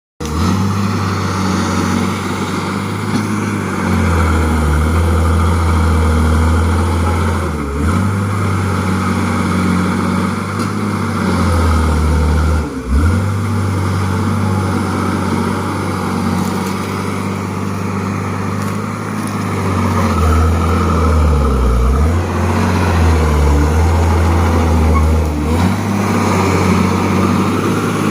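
Caterpillar bulldozer's diesel engine running, its low note stepping up and down every few seconds as the revs change, with a brief drop about thirteen seconds in.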